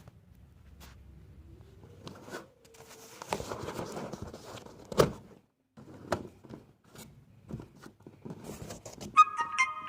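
Cardboard carton being handled and closed up: rustling and scattered knocks, with a sharp knock about five seconds in and a brief high squeak near the end.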